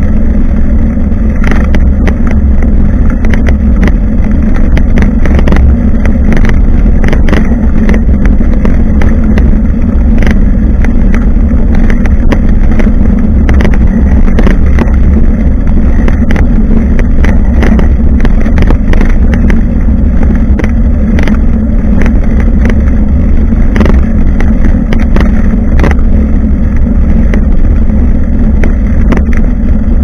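Steady, loud rumble of road vibration picked up by an action camera mounted on the back of a moving bicycle, with frequent small clicks and rattles from the bike and mount.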